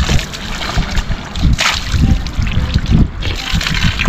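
Wind buffeting the microphone: an uneven, gusty low rumble, with a couple of short bursts of hiss, the strongest one a little before the middle.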